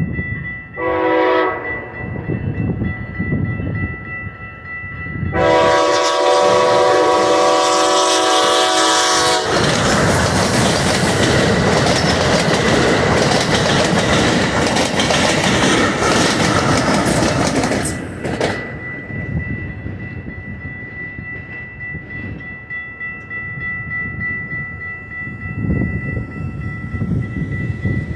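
Amtrak Siemens SC-44 Charger diesel locomotive sounding its horn at a grade crossing: a short blast, then a loud long blast of about four seconds ending the crossing signal. Then the passenger train runs past, loud for about eight seconds before dropping off. Over it all the crossing's warning bell rings steadily and stops near the end.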